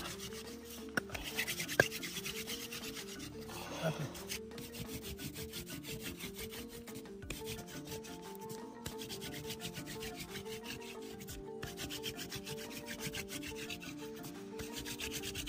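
Wooden hand-drill spindle rubbing against a wooden fireboard as it is spun back and forth between the palms to make fire, a dry scratching friction, over quiet background music with repeating stepped notes.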